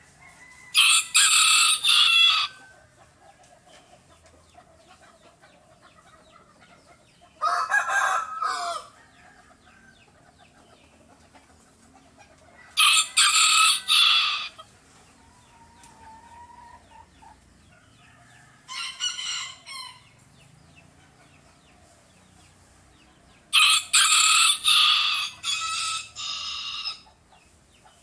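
A rooster crowing several times, in high-pitched crows a few seconds apart; the last crow is the longest.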